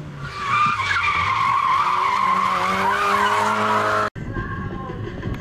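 Rally car cornering hard on tarmac: loud tyre squeal wavering in pitch as it slides through the bend, with the engine revving up underneath. The sound cuts off abruptly about four seconds in.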